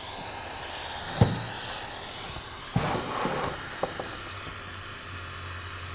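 Steady hiss of static from the Elektronika 23TB-307D CRT television's speaker; the owner says the set puts out sound even with its volume control turned all the way off. A knock about a second in and a few clicks near three seconds come from the chassis and circuit board being handled.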